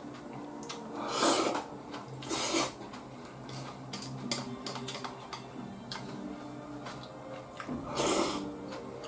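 Miso soup being slurped from a bowl: three loud slurps, a little after a second in, again about a second later, and near the end. Small clicks of chopsticks against the bowl fall between them.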